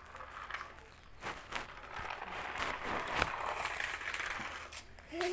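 Toy remote-control JCB loader driving on a concrete floor: the rough, noisy running of its small motor, plastic gears and wheels on the rough surface, setting in about two seconds in after a few scattered clicks.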